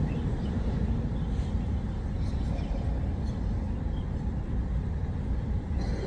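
Steady low rumble of room noise in a large, crowded mosque prayer hall while the congregation is silent in prostration.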